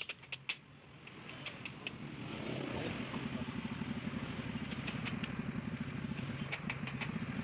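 A motorcycle engine running with a rapid, even, low thumping. It grows louder over the first three seconds, then runs steadily. Sharp clicks come in the first two seconds and again twice later.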